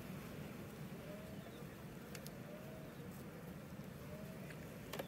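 Faint, steady hum of honeybees around an open hive, with one sharp click near the end.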